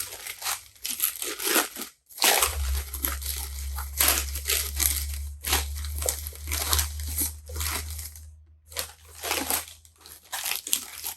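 Newspaper wrapping being crumpled and torn off a film camera by hand, in irregular bursts of rustling and crinkling.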